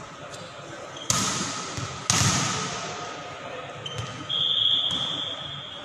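A volleyball slapping hard on the sports-hall floor twice, a second apart, each smack ringing in the big hall, then the referee's whistle blowing one steady blast of about two seconds near the end, the signal for the serve.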